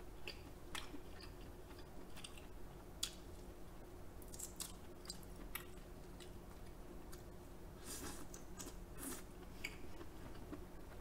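A person chewing king crab leg meat close to the microphone, faint, with scattered short mouth clicks and smacks.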